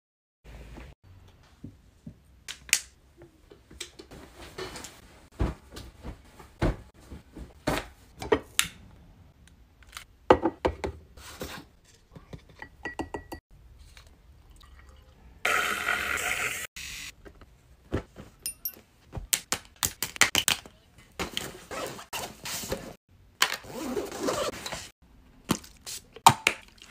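Close-up handling sounds of bottles and toiletries: a string of separate taps, clicks and clinks as plastic bottles and containers are picked up, opened and set down, with a rushing sound lasting about a second just past the middle.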